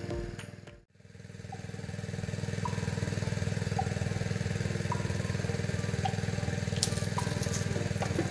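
Background music fades out about a second in, then a small engine runs steadily, with faint short high notes about once a second over it.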